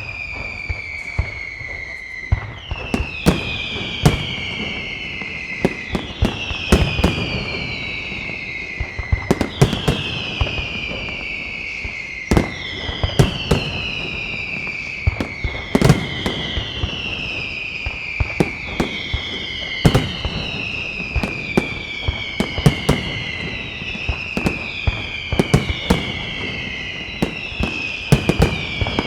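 Caballer FX night fireworks display: a steady string of overlapping whistles, each falling in pitch over a couple of seconds and a new one starting every second or two, over a dense run of sharp bangs and crackle.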